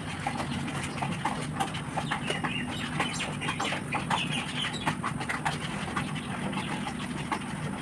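Wet squelches and light clicks of marinated chicken pieces being handled and pushed onto metal skewers in a glass bowl, over a steady low hum, with a few faint bird calls in the background.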